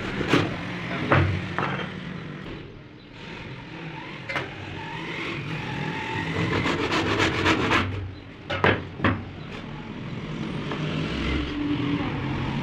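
Several sharp knocks at uneven intervals, two of them in quick succession near the end, over a steady low rumble.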